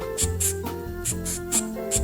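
Background music: held notes over a bass line, with a quick, regular hi-hat-like tick.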